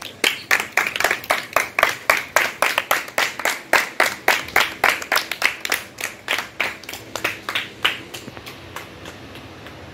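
A small group of children and an adult clapping together in a steady rhythm, about three to four claps a second, growing weaker near the end.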